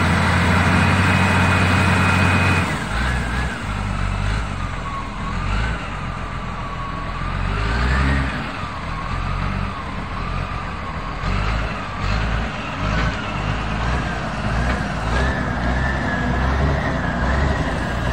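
Wheel loader's diesel engine working under load. It runs steady and loud for the first few seconds, then drops and revs up and down unevenly as the machine pushes dirt, with a high whine that rises and falls with it.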